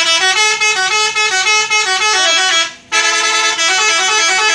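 Telolet bus horn playing a loud tune of stepping multi-tone notes, in two phrases with a brief break just under three seconds in.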